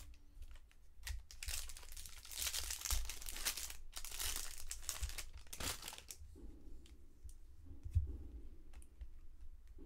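A trading card pack's foil wrapper being torn open and crumpled: several seconds of crinkling that stop about six seconds in, followed by a few light clicks.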